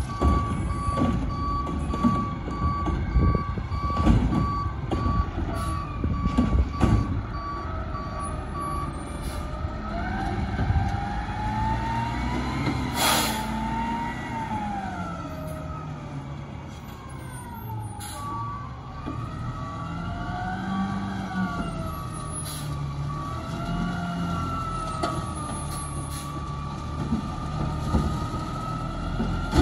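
Front-loader garbage truck at work: its backup alarm beeps steadily with sharp metal clanks, then stops. The diesel engine revs up and down several times, with a loud bang about halfway through, and the alarm starts beeping again.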